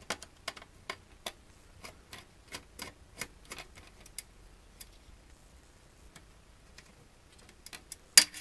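Screwdriver backing screws out of a network switch's circuit board in its sheet-metal chassis: a string of irregular sharp metallic clicks and ticks, a few a second, thinning out midway, then a cluster of louder clicks near the end.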